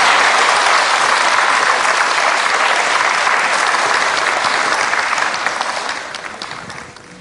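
Studio audience applauding, a dense patter of many hands clapping that dies away over the last second or so.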